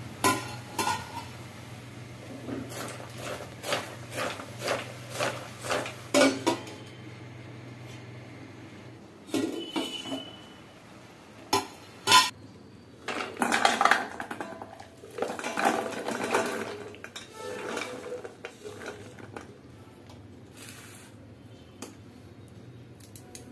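Stainless steel cooking vessel and plate clinking and knocking in a run of short clanks, the loudest about halfway through, then longer scraping and rattling, and fainter handling near the end.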